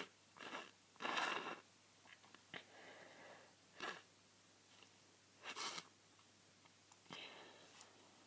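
A person with a head cold breathing quietly between sneezes: a handful of short, soft breathy sounds a second or two apart, the longest about a second in.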